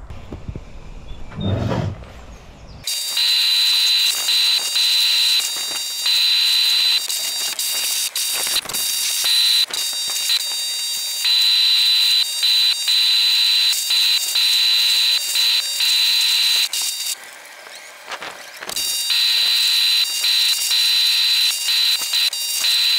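Kärcher pressure washer spraying down a mud-caked dirt bike: a steady high-pitched whine with the hiss of the jet, starting about three seconds in. It stops and starts again many times as the trigger is let go, with a longer pause near the end.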